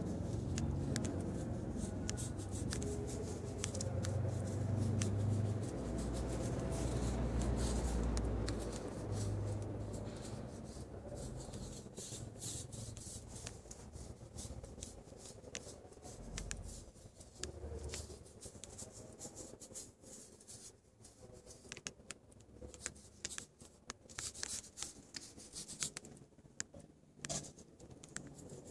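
Paintbrush bristles scratching and dabbing over a painted surface in short, irregular strokes. A low rumble runs under the first ten seconds or so.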